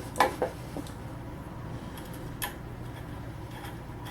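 A few light metal clicks as the embroidery machine's shoe clamp is positioned against the pantograph: two quick ones at the start and one about two and a half seconds in, over a steady low hum.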